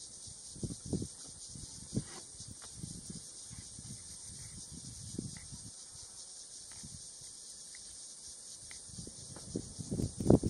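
A steady, high-pitched drone of insects in the bush, with scattered low knocks and thumps. The knocks come more often and grow louder near the end.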